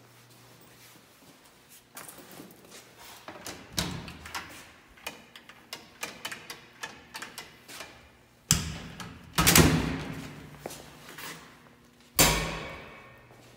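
Metal cabinet doors being handled: a run of knocks and rattles, then two loud bangs a little past the middle, and a sharp slam near the end that rings out.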